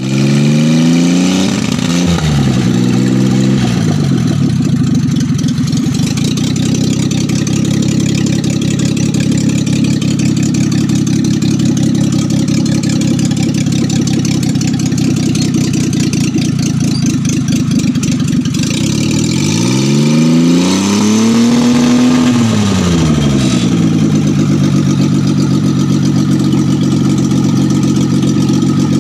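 Small engine of a homemade helicopter running steadily, revved up just after the start and again about two-thirds of the way through, each time rising in pitch and settling back to a steady run.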